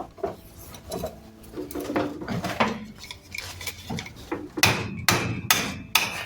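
Hammer blows on a rusted EGR cooler and bypass valve housing, driving the seized parts apart. Lighter knocks come first, then about four hard, ringing strikes roughly half a second apart near the end.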